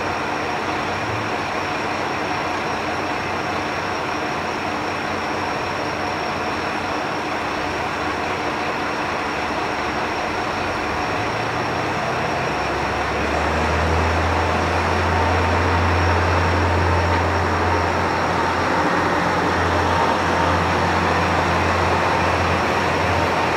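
Joso Line diesel railcar pulling out of a station: about halfway through, its engine comes up to a strong, low, steady drone as the train departs, over a constant background hiss.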